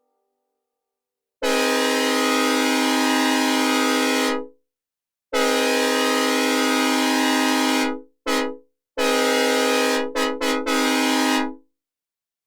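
Synthesized recreation of a hybrid K5HL five-chime train horn, played dry with no reverb, sounding the grade-crossing signal: two long blasts, one short, then a final long blast broken twice briefly. Each blast is a steady chord that cuts off abruptly.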